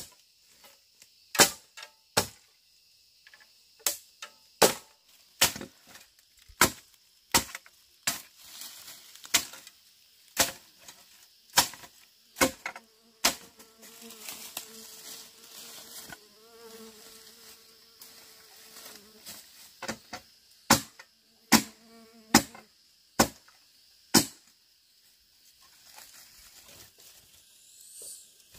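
A run of sharp strikes, roughly one a second, like a tool chopping or knocking, with a pause of several seconds in the middle. A steady high insect drone runs underneath, and during the pause a fly buzzes close by for about ten seconds.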